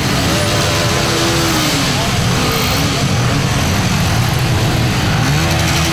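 A pack of motorcycles running and revving at low speed, their engines making a dense, steady rumble, with men's voices calling out over them.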